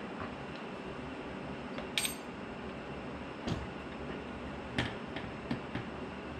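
Hand tools clinking and tapping on metal as the paramotor engine's mounting is worked loose. There is one bright ringing clink about two seconds in, then a few sharper knocks and lighter clicks toward the end, over a steady low hum.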